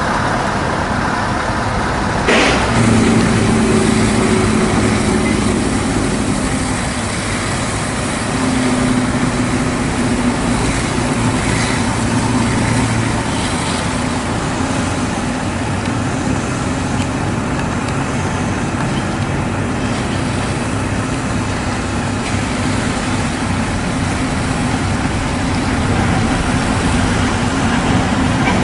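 Heavy diesel tractor-unit engines running and moving through a truck wash bay, their engine note rising and falling twice, over the steady rush of a high-pressure water jet spraying onto the trucks. There is one sharp knock about two seconds in.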